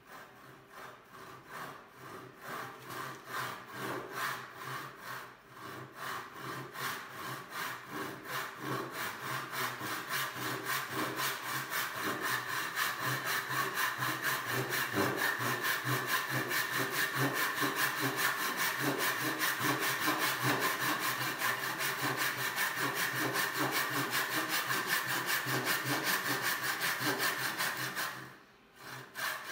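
BT&C Hardware Store handsaw, a small unbacked panel saw, sawing wood by hand. Soft, short starting strokes build into loud, steady, rhythmic push-and-pull strokes as the cut deepens. The sawing stops briefly about a second before the end, then starts again.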